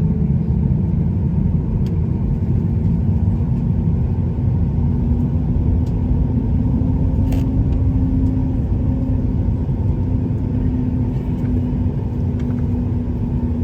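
Boeing 737 MAX cabin noise at takeoff: the CFM LEAP-1B jet engines running at high thrust under a heavy, steady rumble from the runway, with an engine hum that rises slightly partway through and holds.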